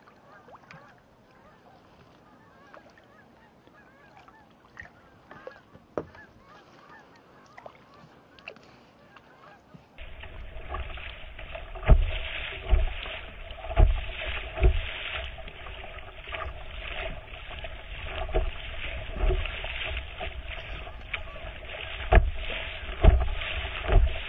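Kayak paddling heard from a bow-mounted camera: water washing along the hull, with faint bird calls in the quieter first part. About ten seconds in the sound turns louder and rushing, with a series of low thumps against the hull and microphone.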